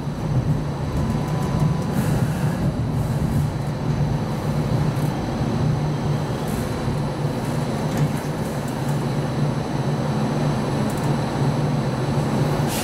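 Inside a Hong Kong Light Rail Phase I car (Comeng-built): a steady low hum from the car's electrical equipment, with the running noise of the car moving slowly along street track.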